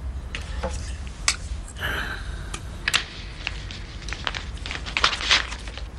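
Scattered light clicks and rustles of a black document folder being handled and passed from hand to hand, over a low steady hum; the rustling is busiest about five seconds in.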